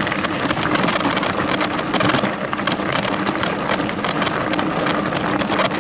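Loaded bicycle rolling over a rough track: a steady, dense crackle of tyres on the loose surface, mixed with rattling from the bike.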